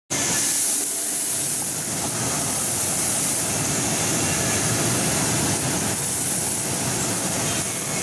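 Bubble-type strawberry washing machine running: a steady hissing, churning water noise from its air-bubbling tank and spray bar.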